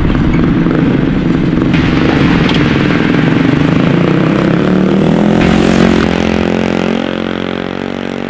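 Small engines of motorized off-road stand-up scooters running, revving up with a rising pitch about five seconds in.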